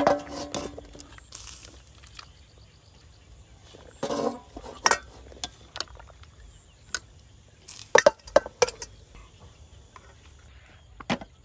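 Metal ladle clinking against a stainless steel cooking pot and bowl as boiled meat is lifted out of the water. A ringing clang comes right at the start, a few more clinks about four seconds in, and a quick run of sharp clinks around eight seconds.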